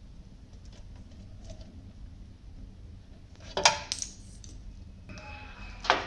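Metal clinks and knocks as a computer power supply is handled against a steel PC case, with two sharp knocks about three and a half seconds in and just before the end.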